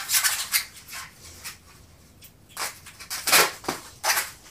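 Bubble wrap crinkling and rustling as it is pulled off a wrapped glass bottle by hand. The crackle comes in short spells, with a quieter lull of a second or so in the middle.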